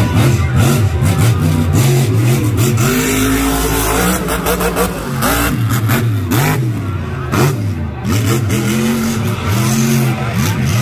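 Monster truck engine revving hard over and over, its pitch climbing and dropping every second or so.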